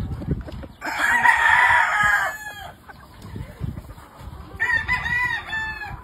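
Gamefowl rooster crowing twice: a long, loud crow about a second in, and a second, quieter crow near the end.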